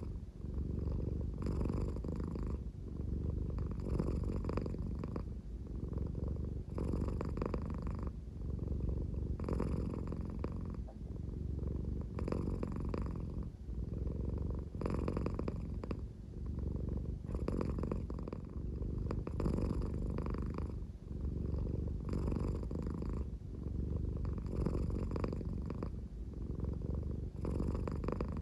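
American Shorthair cat purring at a slow, leisurely pace in a snore-like rumble. The purr swells roughly every two and a half seconds.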